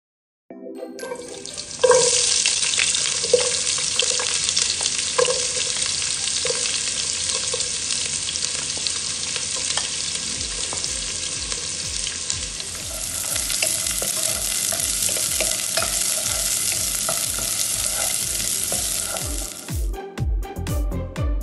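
Chopped onions sizzling in hot oil in a non-stick pot: a loud, steady frying hiss that jumps up as they hit the oil about two seconds in, with a few light clinks early on.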